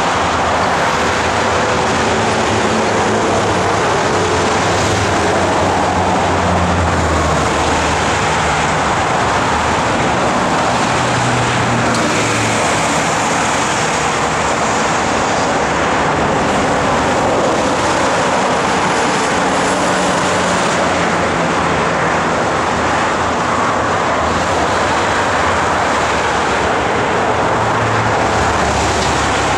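Dense multi-lane freeway traffic: a steady wash of tyre noise and engines from cars and trucks passing below, with deeper engine hums from heavier vehicles swelling and fading every few seconds.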